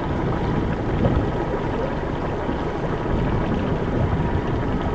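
Steady low rumble and wash of a slow-moving motorboat, the camera boat, running evenly with no sudden sounds.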